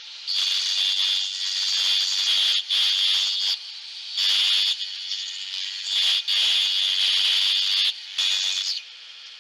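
Scroll saw cutting a small piece of wood, a high-pitched rasping noise in several bursts of one to two seconds with short breaks between them.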